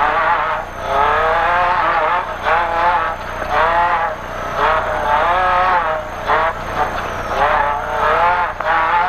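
Toyota race truck's 3RZ four-cylinder engine under hard off-road driving. It revs up and drops back again and again, about once a second, as the throttle is worked.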